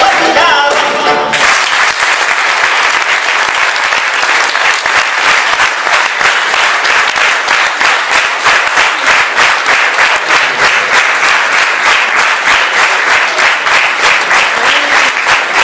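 Live music stops about a second in, and a large audience breaks into steady applause that carries on throughout.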